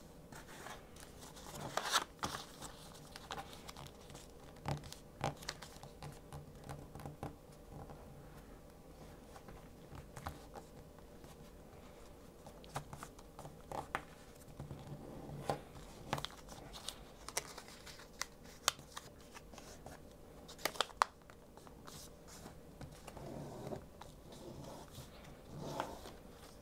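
Paper rustling and crinkling as hands fold and crease the wings of a paper airplane, with irregular sharp ticks and scrapes as fingers press the folds flat.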